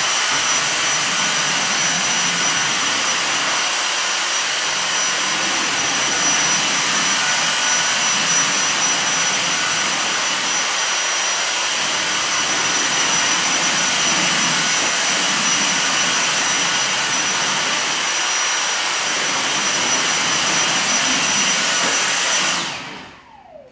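Cordless vacuum cleaner running steadily with a thin high whine over its rushing noise, switched off near the end and winding down.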